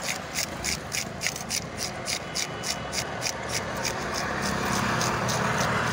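A knife scraping the scales off a whole fish in quick regular strokes, about three a second. In the second half a steady rushing noise swells and becomes the loudest sound near the end.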